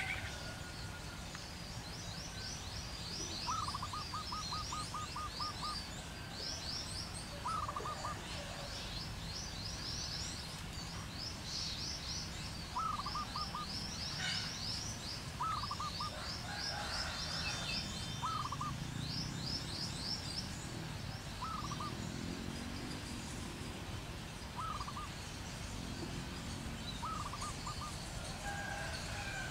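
Wild birds calling in the treetops: runs of fast, high twittering notes for much of the first twenty seconds, over short lower calls repeated every few seconds, with steady low background noise.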